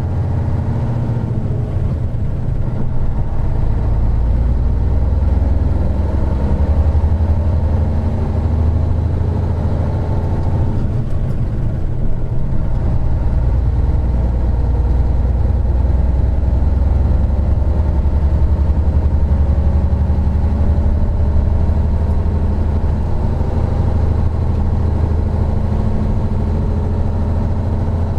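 Isuzu Gala III coach's 12PE1 V12 diesel engine under way, heard on board the bus: a steady low drone whose engine note climbs, dips briefly about eleven to twelve seconds in, then climbs again.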